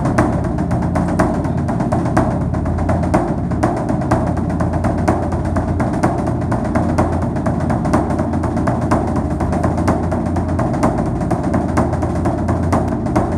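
Instrumental background music with drums and percussion, a steady beat of dense short strikes over a low bass.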